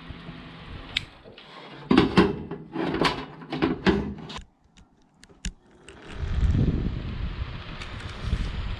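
Knocks, clicks and clatter of an appliance being handled and switched, then a fan starting up and running with a steady rush of air from about six seconds in.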